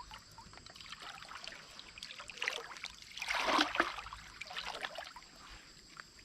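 Water splashing and trickling, with several surges and the loudest splash about halfway through.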